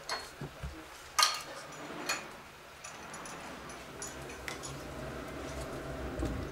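A few sharp clicks and knocks, the loudest about a second in, over a faint steady rumble.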